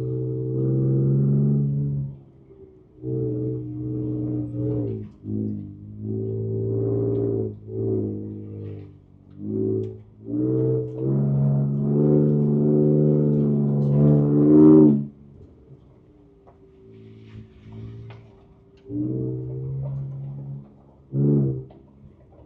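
Ford Ranger Raptor's twin-turbo V6 engine heard from inside the cabin, pulling at low speed in repeated spells of throttle a few seconds long, dropping back between them. The longest pull, about eleven to fifteen seconds in, slowly rises in pitch and is the loudest part; the engine is quieter for a few seconds after it.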